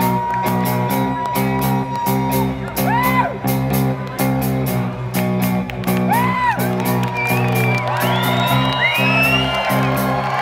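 Live new wave band playing loudly in a concert hall: drums keep a steady beat over held bass notes, with high sliding notes that rise and fall about three seconds in and again about six seconds in.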